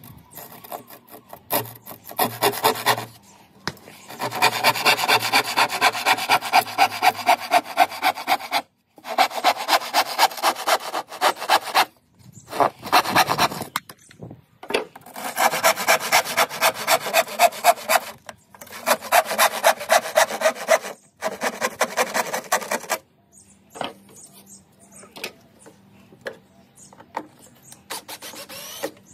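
Hand saw cutting across a pine board: quick back-and-forth strokes, about two or three a second, in several bouts with short pauses between them. The sawing stops a few seconds before the end, leaving only a few faint taps.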